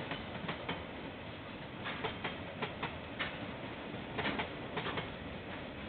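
KiwiRail train rolling past, its wheels clicking over rail joints in quick pairs over a steady rushing noise.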